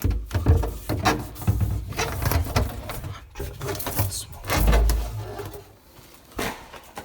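Irregular knocks and clatter of things being handled, with one heavier low thump about halfway through.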